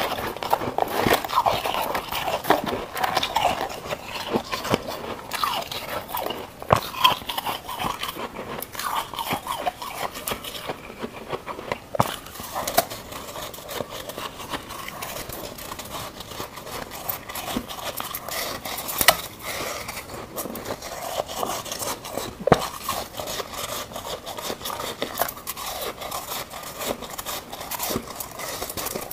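Dense, crackly crunching and chewing of frost ice as a person bites into and chews white, snowy chunks of freezer frost. A few louder, sharp cracks are scattered through it.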